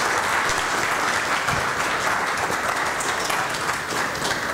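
Audience applauding steadily in an auditorium.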